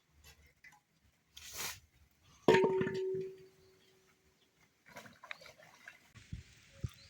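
A metal cooking pot or lid knocked once, ringing on with a clear tone for over a second, among a few lighter clinks and scrapes of cookware.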